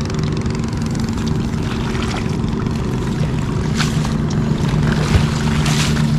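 Small boat engine running steadily in a low even drone, with a few short knocks in the boat near the end.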